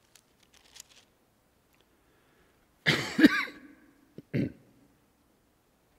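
A man coughing close to the microphone: a longer cough about three seconds in, then a shorter one about a second later.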